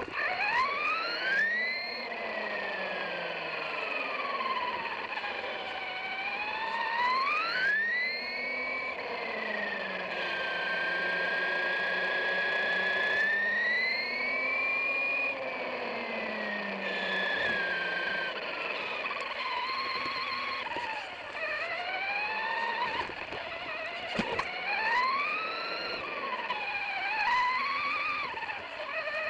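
Electric RC truck's motor whining as it drives, its pitch gliding up and down with the throttle.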